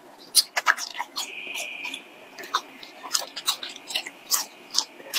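Mouth sounds of chewing and sucking on a long strip of spicy latiao (chilli-coated Chinese gluten snack): irregular wet clicks and crackles, with a brief hissing suck a little after a second in.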